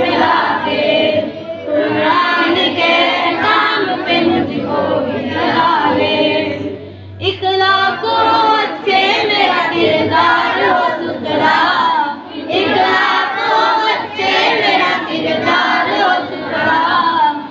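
Children singing a devotional prayer together. Just before seven seconds in there is a short break, after which a boy singing into a microphone leads.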